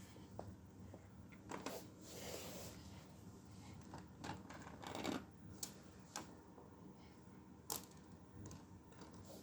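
Lego plastic pieces clicking and knocking as they are handled, in irregular sharp clicks a second or so apart.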